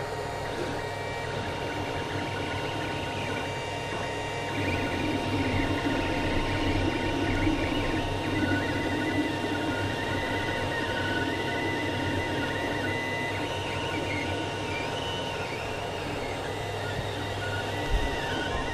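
Creality CR-10 3D printer running a print: its stepper motors whine in shifting pitches as the head and bed move, over a steady hum with a fixed tone beneath. There is a single bump near the end.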